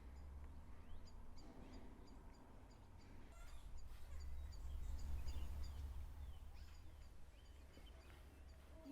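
Small birds chirping faintly, a short high chirp repeated again and again, over a steady low rumble.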